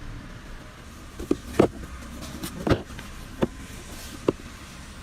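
Plastic trim cover behind the glove box being pressed back on, its clips snapping into place: about five sharp clicks and knocks at irregular intervals over a low steady hum.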